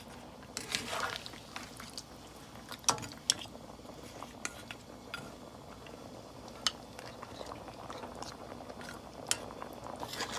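Scattered sharp metal clinks of a spoon knocking against a cooking pot, about a dozen in all, with a small cluster about a second in. Under them is the faint steady hiss of the pot simmering.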